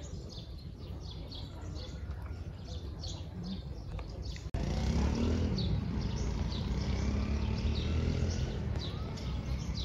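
A small bird chirps over and over, several short, falling, high-pitched notes a second. A low rumble sits under it, and it grows louder after a sudden break about four and a half seconds in.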